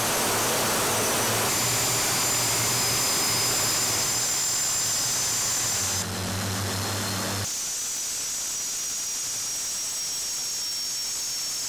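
BAE Hawk jet's Rolls-Royce Turbomeca Adour turbofan running on the ground, a steady jet noise with a high-pitched whine. It drops somewhat in level about six seconds in.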